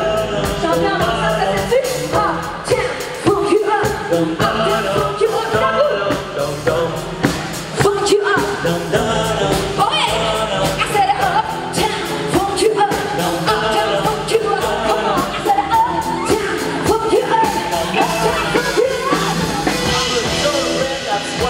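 Live country band playing loud and without a break, with a woman singing lead over drums, bass and guitars.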